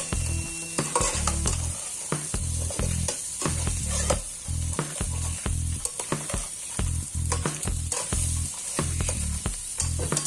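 Crabs sizzling in a frying pan while they are stirred, with frequent short clicks and scrapes of the stirring utensil against the pan and shells.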